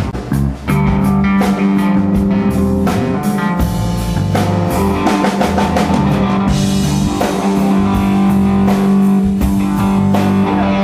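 Rock band playing together at a sound check: a drum kit and guitars, with a steady held low note underneath.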